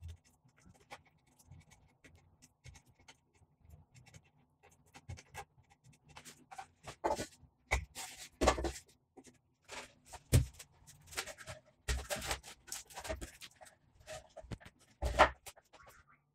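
Handling noise from gluing up a wooden finger-jointed box: light scraping and ticking as glue is spread on the joint fingers, then irregular knocks and taps as the boards are moved and set against the clamping rack. The loudest knocks come in the second half.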